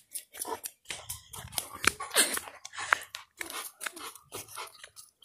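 Quick, irregular crunching steps of a person in flip-flops walking fast on a dirt road, mixed with rubbing and knocking noises from the hand-held phone.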